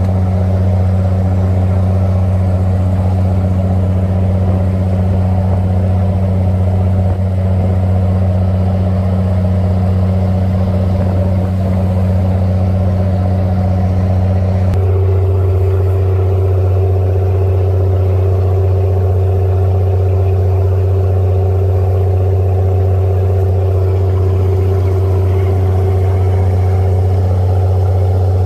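Boat engine running steadily with a deep drone; about halfway through, a higher tone in the engine sound shifts up in pitch and holds there.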